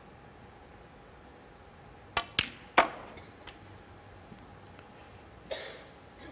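Snooker balls clicking: a quick run of three sharp clacks about two seconds in, cue tip on cue ball and cue ball on the green as the green is potted. A brief soft breathy rustle follows near the end.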